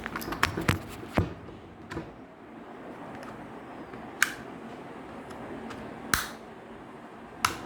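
Plastic clicks and knocks of a Razer Huntsman Mini 60% keyboard being handled and tilted while its tilt feet are set to another height. There is a quick cluster of clicks in the first second or so, then single clicks and knocks a couple of seconds apart.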